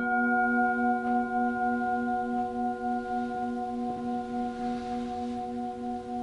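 A bell-like metal tone, struck once at the start and left ringing with several steady pitches. The low note pulses about three times a second as the sound slowly fades.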